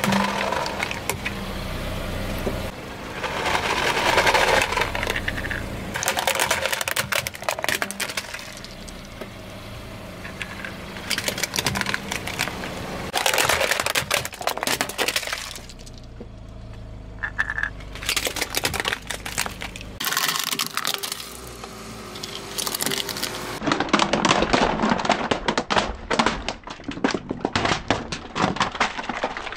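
Hard plastic toy truck cracking, snapping and crunching under a slowly rolling car tyre, in several bouts of dense sharp cracks with brief lulls between them.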